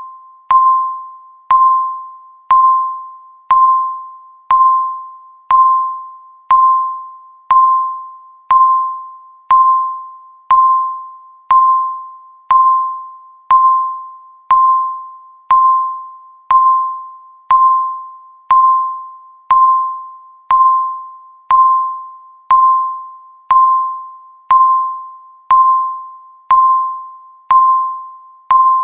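Countdown timer beep: a short bell-like tone near 1 kHz, struck once a second with a sharp attack and a ringing decay, marking each passing second.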